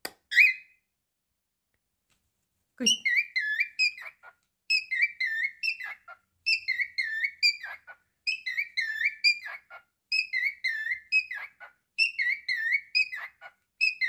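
Male cockatiel whistling the same short tune over and over: a run of quick high notes ending in a falling glide, repeated about every two seconds. The singing starts about three seconds in, after a single short chirp at the very start.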